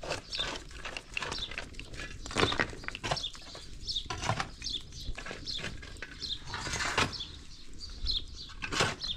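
Chickens flapping and scuffling, with frequent short, high chirps throughout.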